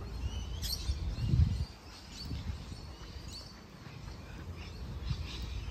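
Outdoor ambience with birds chirping on and off, short high calls and little rising glides, over a low rumble that eases after the first second and a half.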